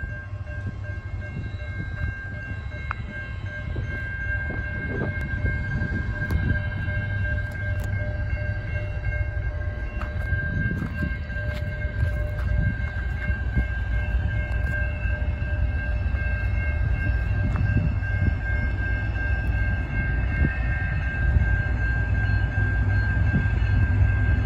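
Railroad grade-crossing warning bell ringing steadily over the low rumble of an approaching freight train's diesel locomotives, the rumble growing louder as the train nears.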